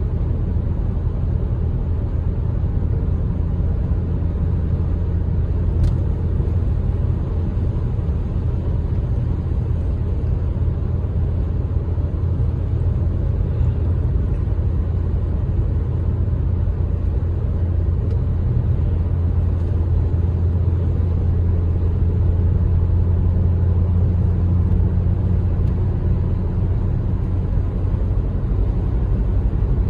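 Ford SVT Focus's 2.0-litre four-cylinder engine and tyre noise heard from inside the cabin while cruising, a steady low drone.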